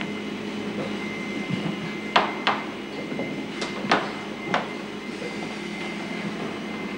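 Steady electronic hum of a science-fiction spaceship bridge's background sound effect, with a handful of short, sharp clicks in the middle, about two to four and a half seconds in.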